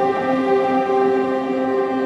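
Slow ambient music of long held synth-like tones, with a few notes changing.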